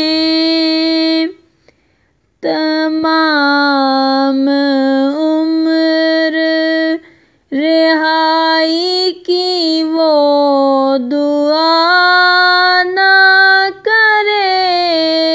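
A naat sung by a single voice: long, held, wavering notes drawn out over several phrases. It breaks off briefly about a second and a half in and again around seven seconds in.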